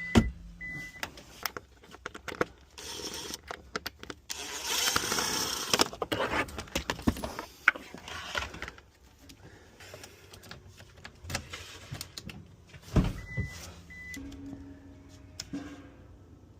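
Locksmith working on a stuck car ignition lock: a run of clicks, taps and knocks, with a few seconds of whirring tool noise about four seconds in. Short high electronic beeps sound near the start and again near the end.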